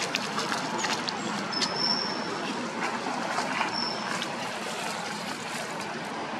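Steady outdoor background hiss with a few crackles of dry leaves under a macaque's feet in the first second or so, and two short high-pitched whistles partway through.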